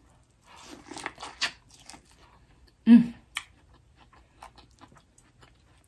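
Close-up chewing and food-handling sounds, a run of wet clicks and crackles, with one short voiced sound about three seconds in.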